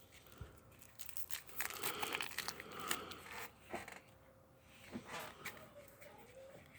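Packaging being opened and handled by hand: crinkling, tearing and rustling with scattered clicks, busiest from about one to three and a half seconds in and again around five seconds in.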